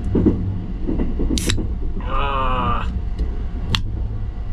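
Steady low rumble of the Sunrise Seto sleeper train running, heard from inside the compartment. Two sharp clicks and a brief wavering pitched sound about two seconds in rise over it.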